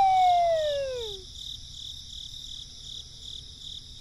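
Crickets chirping in an even, pulsing rhythm of a few chirps a second. A falling whistle tone slides down and dies away about a second in.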